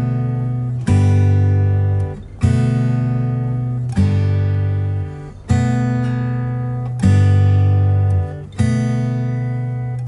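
Background music: acoustic guitar chords strummed about every second and a half, each one left to ring out and fade before the next.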